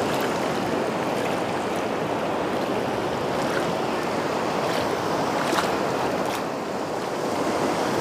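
Sea surf breaking and washing over shallow water, a steady rushing.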